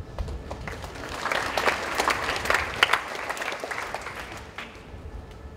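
Audience applauding, the clapping building about a second in and dying away near the end.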